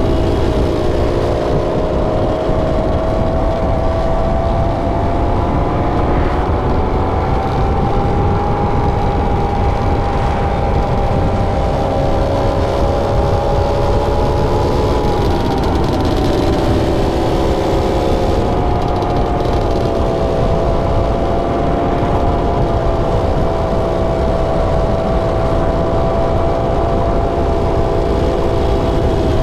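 Dirt bike engines cruising down a street, the pitch drifting slowly up and down with the throttle, never dropping to idle, with wind rumbling on the microphone.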